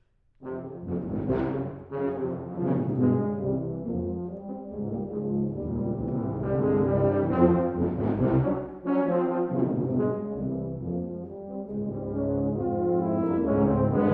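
Tuba/euphonium quartet of two euphoniums and two tubas starting to play out of silence about half a second in: a few short, accented chords, then fuller held chords and moving lines in the low brass.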